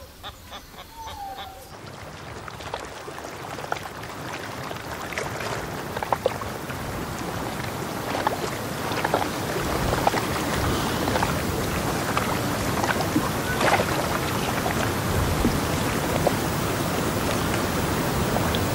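A steady rushing outdoor noise with scattered small clicks, growing gradually louder. A hen clucks briefly at the start.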